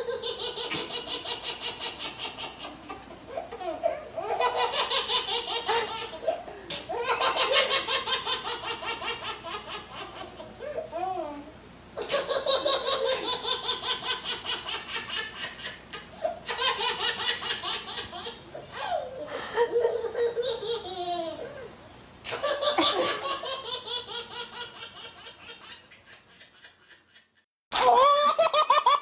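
A young child laughing hard in repeated bouts of quick, breathy pulses, each bout a few seconds long with short breaks between. Near the end the laughter fades away, and after a brief silence a new bout starts suddenly.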